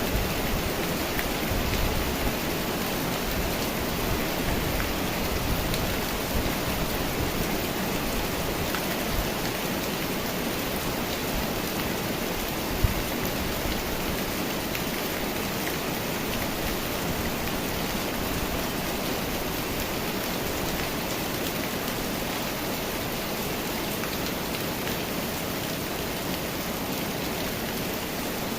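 Steady rain falling during a summer rainstorm, with a single sharp tap of a drop about halfway through.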